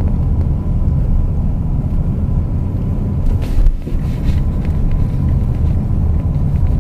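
Steady road rumble of a car being driven through town, heard from inside the cabin: low engine and tyre noise. A brief rise in hiss comes about halfway through.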